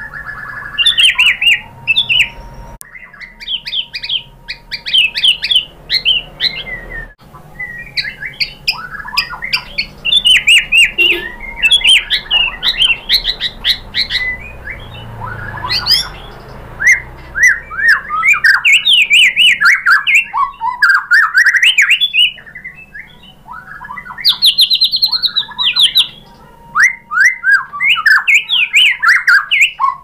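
White-rumped shama (murai batu) in full song: fast runs of varied whistled and chattering notes with a few short pauses, the bird running through its repertoire.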